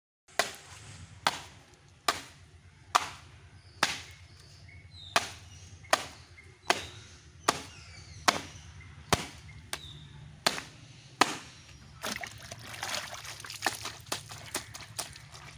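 A regular run of sharp strikes, about one every 0.8 seconds, over a steady low hum. From about twelve seconds in, the strikes grow softer and closer together under a rising hiss.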